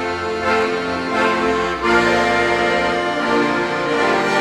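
A group of accordions playing together, a lively tune with sustained chords and changing melody notes.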